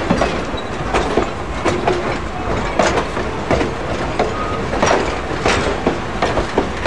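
Passenger cars of a train rolling past, their wheels clicking irregularly over the rail joints above a steady low rumble.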